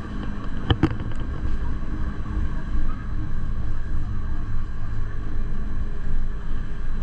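Gornergrat Bahn electric rack-railway train running, a steady low rumble, with a sharp knock and a few clicks about a second in.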